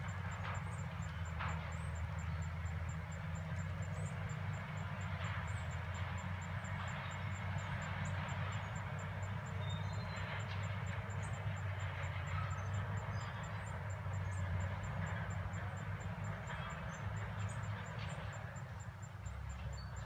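Diesel engines of bulldozers working at a distance, a steady low rumble whose note shifts shortly before the end.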